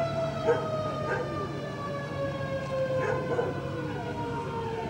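Commemorative siren marking the minute of the explosion, one long wail slowly falling in pitch as it winds down, with a few brief faint sounds over it.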